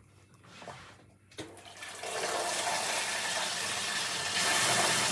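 Kitchen tap running water, coming on about a second and a half in and running steadily.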